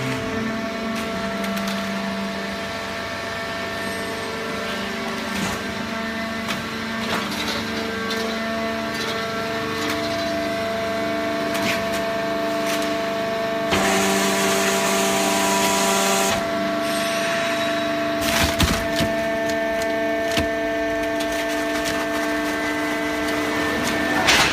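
Hydraulic baling press running: a steady hum of several tones from its motor and pump, with creaks and clicks as the paper is compressed. Past the middle comes a burst of hiss lasting a couple of seconds, then a few sharp knocks.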